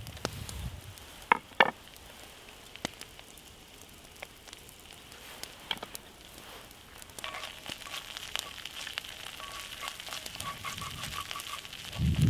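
Chopped garlic and green onion sizzling in oil in a small cast-iron skillet, the sizzle and small crackles of the oil building up about seven seconds in. About a second in, two sharp clicks as a knife scrapes garlic off a wooden cutting board into the pan, and near the end a wooden spoon stirring in the pan.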